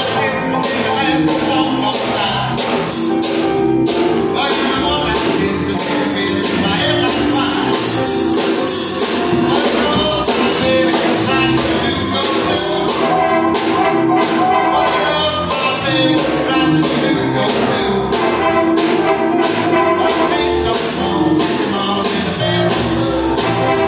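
Live band playing a song: a man singing at a stage piano, backed by electric bass, drum kit and a horn section of saxophone and trumpet, with a steady beat.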